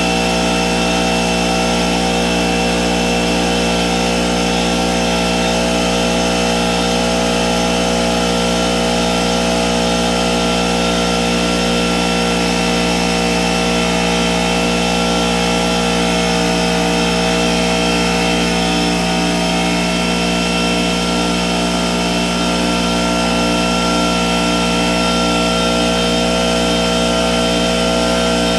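Pancake air compressor's motor and pump running steadily and loudly.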